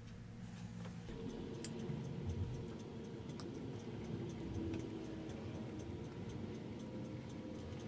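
Solder melting onto a wire splice under a soldering iron: faint, irregular ticks and crackles of the flux, with one sharper click about a second and a half in. A low steady hum sits underneath, coming up about a second in.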